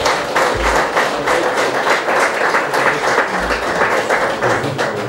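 Audience applauding: dense, steady hand clapping from a crowd.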